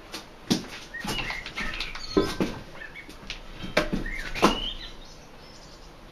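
Car tire being forced onto a steel rim by hand: the rubber bead gives short squeaks as it rubs over the rim, among a string of sharp knocks.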